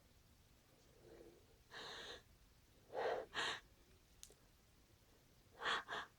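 A person's sneeze build-up: a breath drawn in, then two quick pairs of sharp, loud gasping breaths, the second pair near the end.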